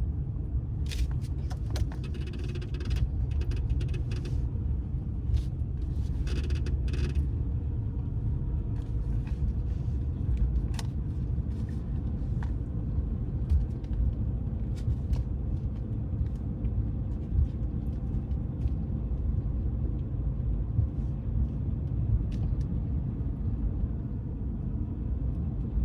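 Subaru Baja on the move, heard from inside the cabin: a steady low rumble of engine and road noise, with scattered clicks and creaks, most of them in the first few seconds.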